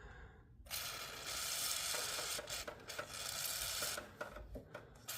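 PB Blaster penetrating-oil aerosol spraying in a long hiss with a few short breaks, applied to free a stuck oil drain tube on a small engine.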